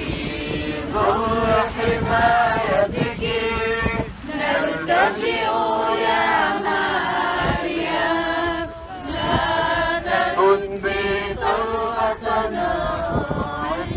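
A walking crowd of worshippers singing an Arabic Marian hymn together in unison, in long held notes.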